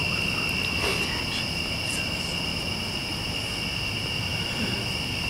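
Crickets singing in an evening chorus: a steady, unbroken high trill.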